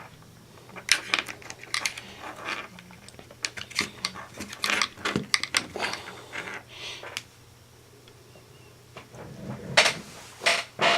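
Irregular sharp clicks and taps of small plastic and metal parts being handled on a 1/18-scale RC buggy's suspension, such as turnbuckle rod ends snapping onto their ball studs. There is a quiet stretch past the middle, then a few louder clicks near the end.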